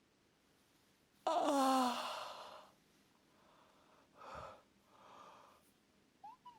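A woman yawns aloud about a second in: a sudden, breathy voiced exhale that falls in pitch and fades over about a second and a half. Two softer breaths follow, and a short rising vocal sound comes near the end.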